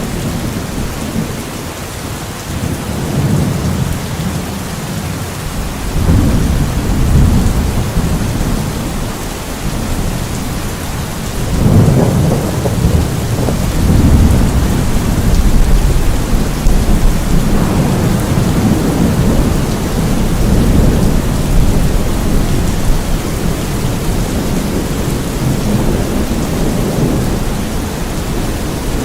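Steady heavy rain with low, rolling rumbles of thunder that swell and fade several times, the strongest a little under halfway through.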